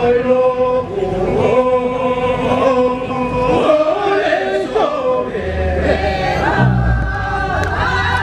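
Mixed group of men's and women's voices singing a traditional Timor-Leste dance chant together in long held, wavering notes. A low steady hum comes in about halfway through.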